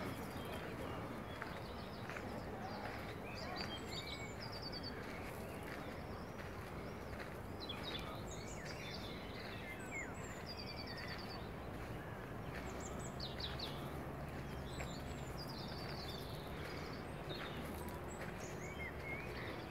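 Songbirds chirping, with a few short rapid trills among the calls, over steady outdoor background noise.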